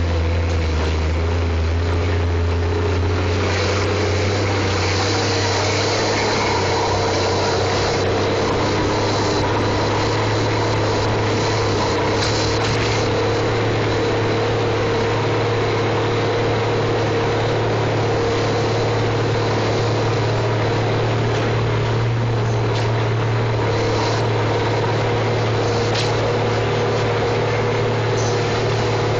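John Deere 540E cable skidder's diesel engine running steadily under load while skidding a log, heard from the operator's seat. Its low note shifts a few seconds in, and there are a few light rattles.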